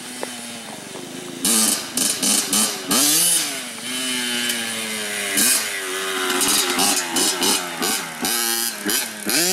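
Dirt bike engine revving as it is ridden, its pitch rising and falling over and over with the throttle.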